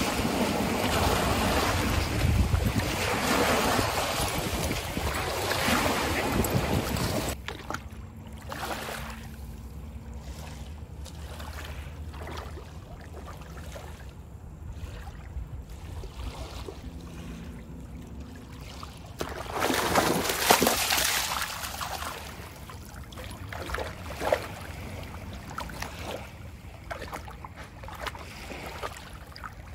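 Small waves breaking and washing over a rocky shore, with wind buffeting the microphone, for about the first seven seconds. Then, after a sudden drop in level, calmer shallow water laps and splashes lightly around a Rhodesian Ridgeback puppy wading, with a louder rush of noise about twenty seconds in.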